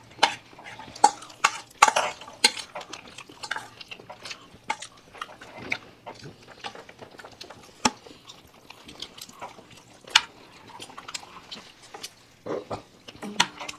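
Spoons clicking and scraping against plates, with noisy chewing of food, in a run of short irregular clinks.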